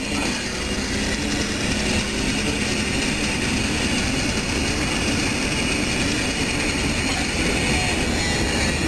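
Inside a moving car: steady engine and tyre rumble with wind rushing in through an open window.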